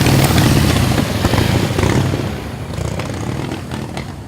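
Antique motorcycle engine running loud, then fading over the last couple of seconds as the bike pulls away.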